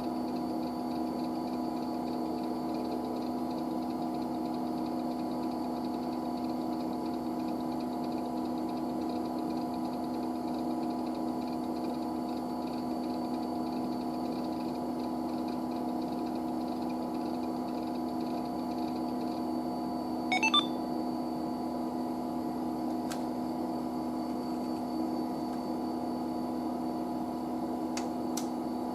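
IBM 9535 running with a steady hum made of several fixed tones. About two-thirds of the way through there is a short, loud burst of clicking, and a couple of faint ticks follow near the end.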